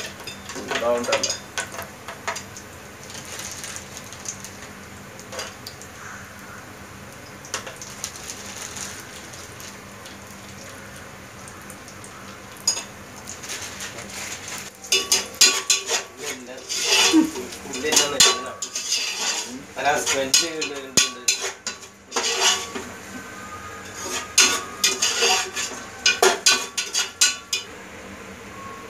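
Metal slotted spatula scraping and clattering against the inside of an aluminium pot, stirring frying onions and cashews, over a faint steady sizzle. The strokes come in bursts, a few near the start and most of them in the second half.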